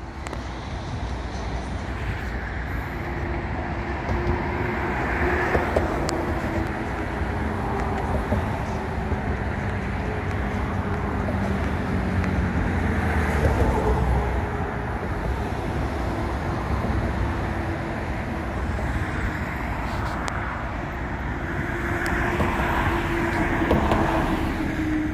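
Road traffic on a nearby street: a steady rumble of cars, swelling several times as vehicles go by, with a faint engine hum underneath.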